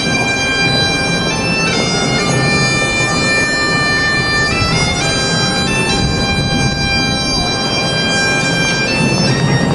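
Bagpipes playing a tune: the chanter moves from note to note, some held for a couple of seconds, over the steady drone.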